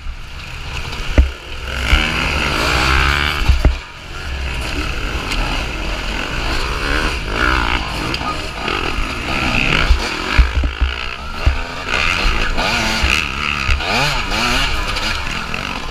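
Two-stroke TM 250 EN enduro motorcycle engine revving hard, its pitch rising and falling over and over as the rider races, with other dirt bikes running close by.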